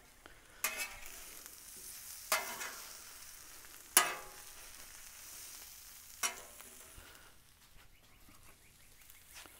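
Potato hash with bacon, mushrooms and spinach sizzling on a Blackstone steel flat-top griddle. Metal spatulas strike and scrape the griddle four times as they flip and mix the hash, the loudest clank about four seconds in.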